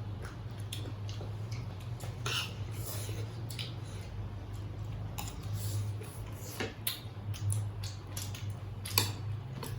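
Plates and eating utensils clinking and scraping during a meal: scattered light clicks, with one louder clink about nine seconds in.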